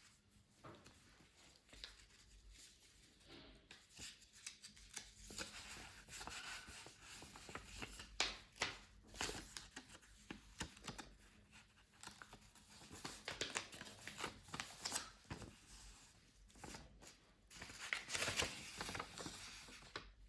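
Packaging being handled by hand: irregular rustling with scattered clicks and taps, coming in several busier clusters.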